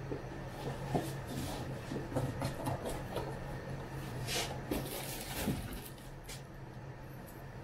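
A large cardboard shipping box being handled and set down upright: irregular scrapes, knocks and rustles of cardboard, with a steady low hum underneath.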